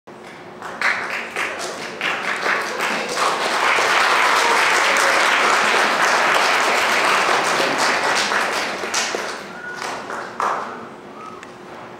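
Audience applauding: a few scattered claps at first, swelling into steady full applause, then tapering off with a few last claps near the end.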